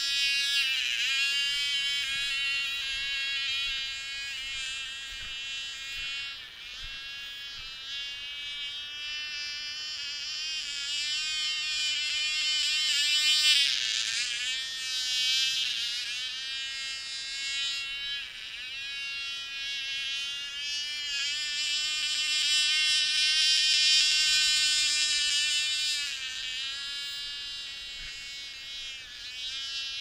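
Cox .049 model glow engine running flat out on a small RC plane in flight: a high, thin, insect-like buzz that rises and falls in pitch and loudness as the plane passes and turns.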